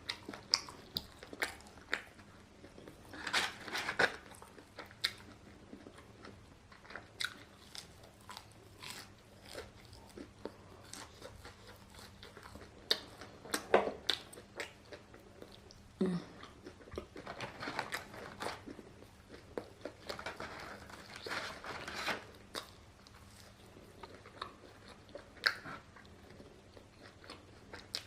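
Close-miked eating: a person biting and chewing pieces of a grilled chicken takeaway meal, with irregular sharp clicks and wet smacks of the mouth and teeth.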